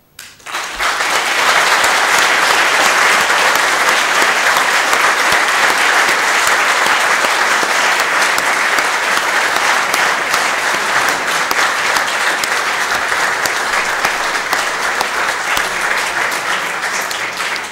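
A chamber full of members of parliament applauding, starting about half a second in and carrying on steadily, easing slightly near the end.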